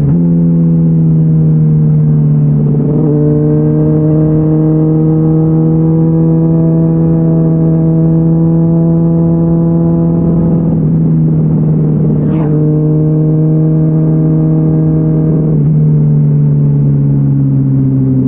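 Honda CBR600RR's inline-four engine running through a GPR Deeptone exhaust with its dB-killer removed, at fairly steady revs. The note briefly breaks and shifts pitch three times: a few seconds in, about ten seconds in and about fifteen seconds in, with a short high chirp around twelve seconds.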